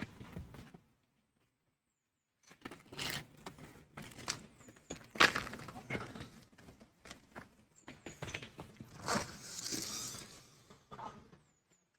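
A run of irregular knocks, clicks and rustling, the loudest knock about five seconds in.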